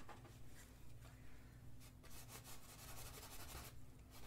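Faint, scratchy strokes of a paintbrush on canvas, coming in a quicker run in the second half, over a low steady hum.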